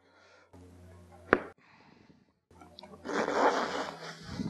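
Hands working convertible-top cloth along its stapled header seam: one sharp click about a second in, then about a second of rough rustling scrape near the end.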